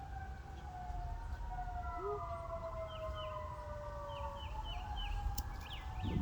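Distant emergency-vehicle siren wailing, its pitch sliding slowly down and up in long overlapping sweeps. From about halfway in, a bird adds short repeated chirps.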